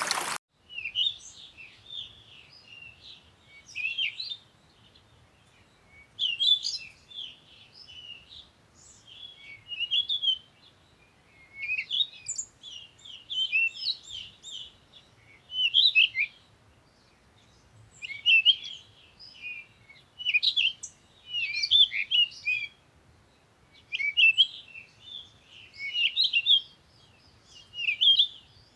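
A songbird singing short, quick twittering phrases high in pitch, repeated about every two seconds with near quiet between them.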